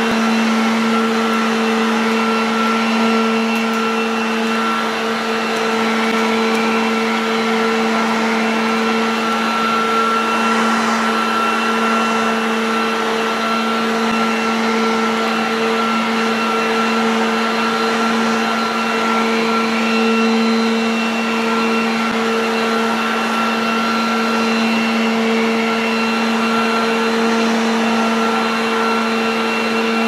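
Garden Gear 1800 W electric push vacuum and blower running steadily: a constant motor hum and whine over rushing air, held at one pitch throughout as it is pushed back and forth over artificial grass.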